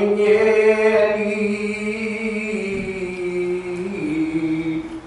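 A man's unaccompanied voice chanting soz, the Urdu elegiac recitation, drawing out one long held note. The note drops a step about four seconds in and breaks off near the end.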